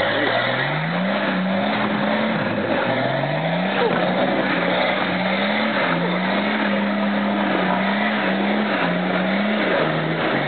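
Off-road 4x4's engine revving hard as it churns through deep mud, the revs climbing twice early on and then held high with small dips. The engine runs over a steady noise of mud and water being thrown up by the tyres.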